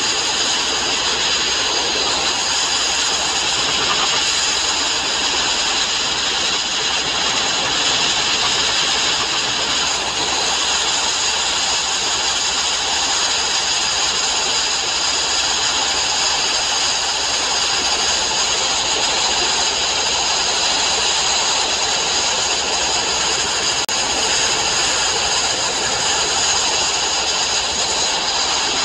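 Abrasive blasting of steel plate: a steady, loud, unbroken hiss of air and grit from the blast nozzle.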